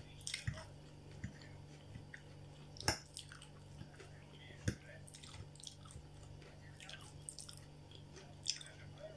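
Close-miked chewing and wet mouth sounds of someone eating soft stewed cabbage and potato, with a few short sharp clicks, the loudest about three seconds in. A faint steady hum lies underneath.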